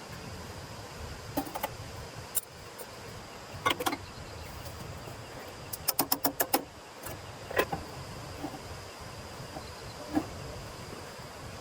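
Irregular sharp knocks and clicks from handling things at a campsite, including a quick run of about seven near the middle. Behind them is a steady outdoor background with a thin high insect-like hum.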